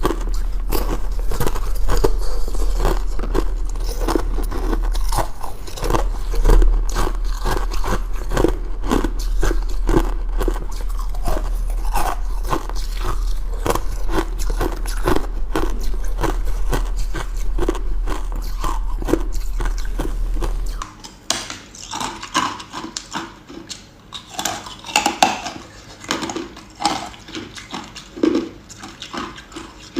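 Ice being bitten and chewed close to the microphone, a dense run of sharp crunches over a steady low hum. About two-thirds of the way through the hum stops and the crunching turns sparser and quieter, slower chewing of the remaining pieces.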